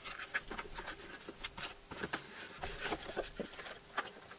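A box being unpacked by hand: scattered light rustles, scrapes and small taps of packaging.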